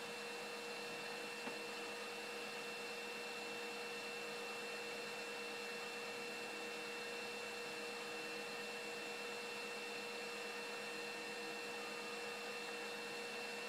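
HF receiver audio tuned to the 40-metre band near 7.0418 MHz: a steady hiss with continuous whistling tones, one low and one high-pitched, from a steady unidentified signal being monitored.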